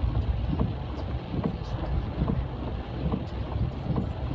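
Wind buffeting the microphone: a steady low rumble with irregular soft knocks.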